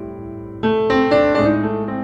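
Slow background piano music: held chords, with a new chord and a few melody notes struck about half a second in.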